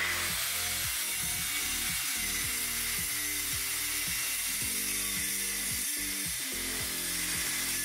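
Handheld circular saw cutting through the end of a wooden slab with an epoxy river: a steady high whine over a loud, even hiss of blade noise, cutting in abruptly.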